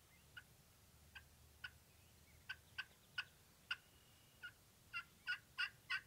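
Wild turkey clucking: a series of short, sharp single notes, spaced out at first, then coming quicker and growing louder near the end.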